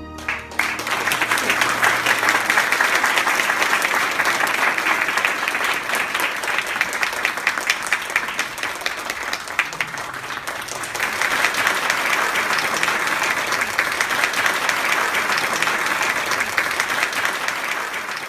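Audience applauding: many people clapping, starting as the last of the music dies away, easing a little about halfway and swelling again.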